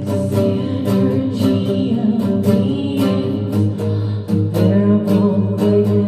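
Live acoustic guitar strummed in a steady rhythm, with a woman singing through a microphone over it, her voice gliding between notes.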